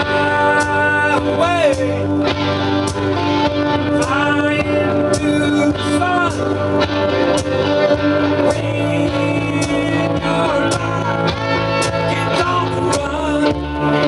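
A self-penned rock song's instrumental break: guitars over bass and steady drum hits, with a lead line of long held notes that bend.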